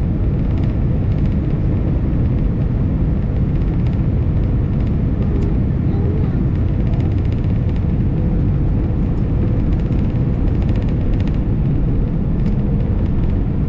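Airbus A319 cabin noise on final approach: the steady low rumble of the jet engines and the airflow over the wing and extended flaps.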